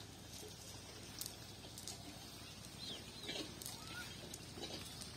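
Faint outdoor ambience with a few short bird chirps around the middle and scattered light clicks.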